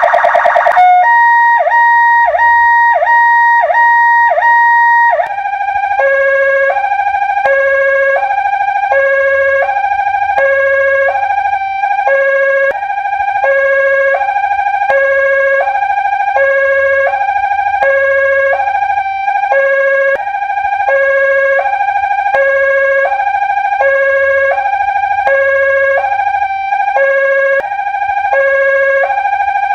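Electronic ambulance siren. It starts with a pulsing pattern of falling sweeps, a bit more than one a second. About five seconds in it switches to a two-tone high-low wail, alternating between two pitches about once a second.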